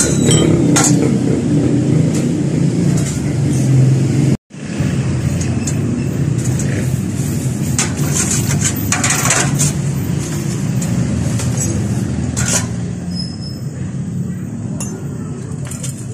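Metal clutch parts clinking against a stainless steel basin and a wire strainer basket while they are washed in gasoline, with a cluster of clinks about eight to ten seconds in. A steady low hum runs underneath.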